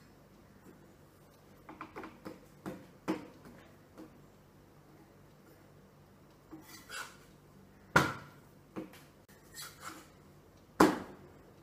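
A metal cooking utensil clicking and clacking against a hot pan on a gas stove as a chapathi is turned over: a scatter of light clicks, then two sharp metallic clacks about three seconds apart near the end.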